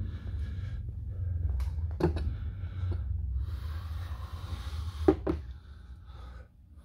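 Handling noise as a phone camera is picked up and moved: rustling and fumbling over a low rumble, with two sharp knocks, about two seconds in and about five seconds in.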